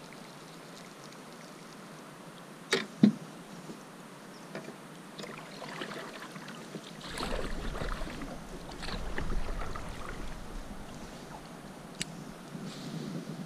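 Kayak paddle strokes in the water, with splashing and dripping from the blade. Two sharp knocks come about three seconds in, before the paddling starts.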